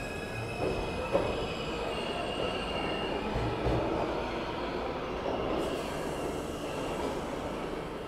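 A New York City subway train running along the station track: a steady rumble and rattle of steel wheels on rail, with one sharp clack about a second in and a faint high wheel squeal around two to three seconds in.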